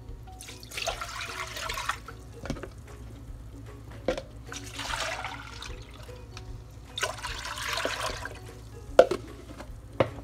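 Water poured from a plastic jug into an empty enamelled cast-iron pot, in three pours of a second or two each, with a few sharp knocks between them.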